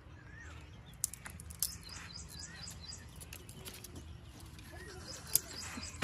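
Small birds chirping and twittering in quick, high, repeated calls over a steady low background rumble, with a few sharp clicks.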